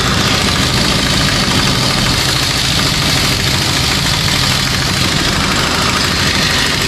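Handheld pneumatic air tool run steadily, without pause, against the front hub and steering knuckle during a CV axle job. It makes a loud, dense buzzing noise with a low hum underneath.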